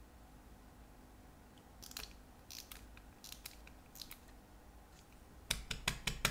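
Light clicks and rubbing as gloved fingers handle a vintage silver watch case, with a quick run of sharper clicks near the end.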